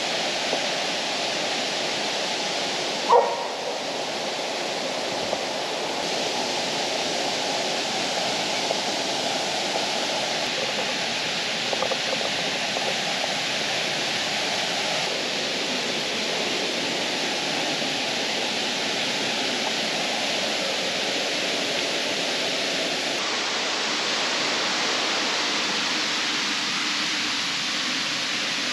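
Waterfall rushing steadily. About three seconds in, one short, loud bark-like cry that drops in pitch cuts through it.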